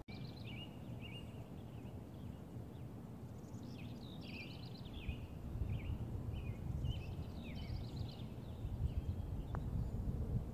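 Songbirds chirping and singing in short repeated phrases over a low rumble of wind on the microphone. Near the end comes a single faint click, a putter striking a golf ball.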